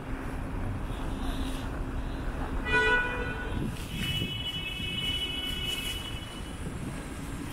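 Downtown street traffic rumbling steadily. About three seconds in a horn gives a short toot, then a high-pitched squeal sounds for about two seconds.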